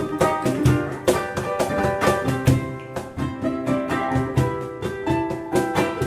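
Gecko CL98 cajon played with bare hands in a steady rhythm of low thumps and sharper strikes, accompanying a ukulele picking a melody.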